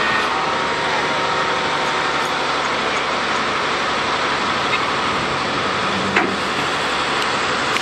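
Steady vehicle engine noise as a Dodge Ram pickup stuck in soft mud is pulled free, with one short sharp click about six seconds in.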